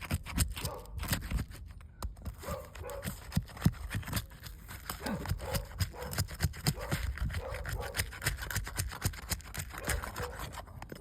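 Irregular scraping and clicking as a roof shingle is worked loose and lifted off its nails.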